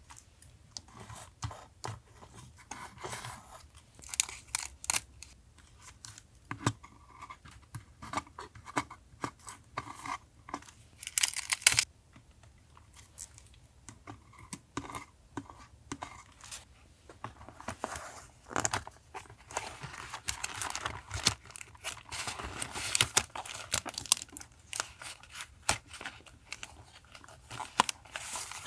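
Paper and stickers being handled for a journal collage: close-up crinkling, tapping and tearing of paper in many short, sharp sounds, with a louder burst of rustling about eleven seconds in and denser rustling later on.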